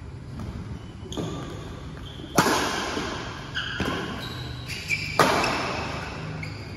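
Badminton rackets striking a shuttlecock in a rally: a string of sharp hits about a second apart, each echoing in the hall, two of them much louder smashes.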